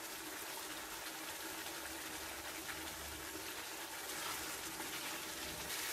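Chicken pepper roast simmering uncovered in a pan, a faint steady hiss as the water in the gravy cooks off.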